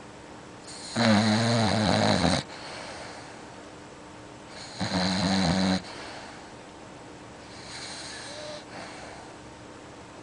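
A sleeping pet snoring: two loud rasping snores about four seconds apart, then a fainter snoring breath near the end.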